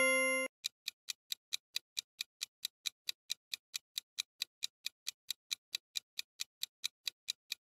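Countdown timer sound effect: a clock ticking steadily, about three ticks a second. The ringing tail of a chime fades out in the first half second.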